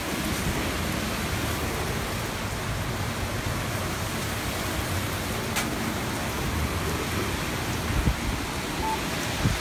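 Typhoon wind and driving rain, a steady rushing noise, with a few low thumps near the end.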